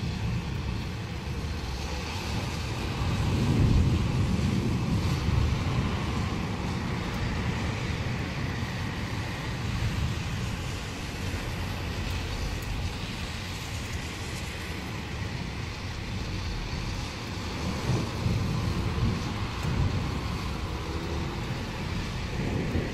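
Distant thunder rumbling in long rolls, swelling about three seconds in and again late on, over a steady hiss of city road traffic.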